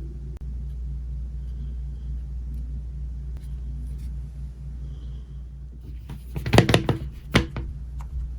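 A steady low hum, then a quick cluster of sharp clicks and knocks about six seconds in, loudest around six and a half and seven and a half seconds in.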